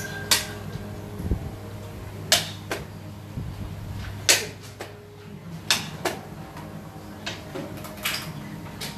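A series of sharp, irregularly spaced clicks, about nine in all, over a steady low hum.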